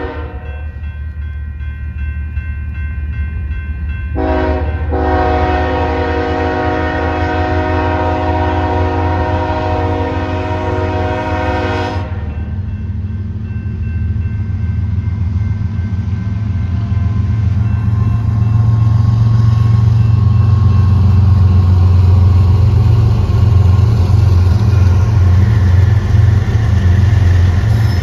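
Horn of a freight train led by GE Evolution Series (GEVO) diesel locomotives sounding for a grade crossing: a long blast ends just as it begins, a short blast comes about four seconds in, then a long blast holds until about twelve seconds in. After the horn stops, the locomotives' diesel engines rumble steadily, growing louder from about eighteen seconds in as they pass close by.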